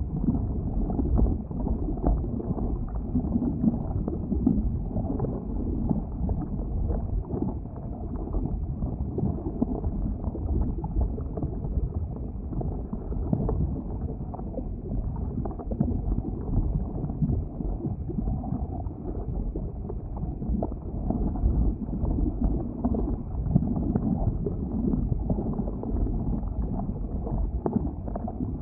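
Boiling lava at an erupting volcanic vent: a deep, steady rumble with a churning, bubbling texture. Muffled, with nothing high-pitched in it.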